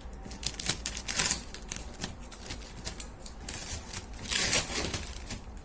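Masking paper and tape being peeled and pulled off a freshly painted refrigerator: quick irregular paper rustles and small tearing crackles, with a longer rustle about four and a half seconds in.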